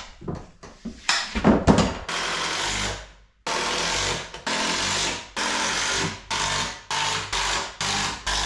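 A few hammer blows on wood, then a power drill running in a string of short bursts, each under a second long.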